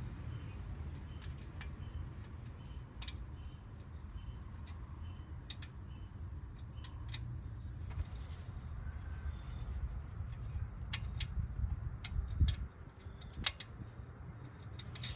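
Scattered light metallic clicks and taps as brake caliper guide pins are fitted into the bracket, over a low steady hum. The clicks are sparse at first and bunch together near the end.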